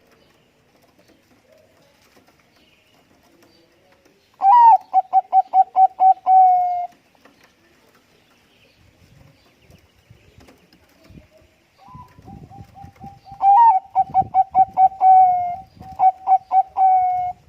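A Bangkok-type zebra dove (perkutut bangkok) sings two songs. Each is a quick run of short staccato coos that opens on a higher note and ends in a longer drawn-out coo.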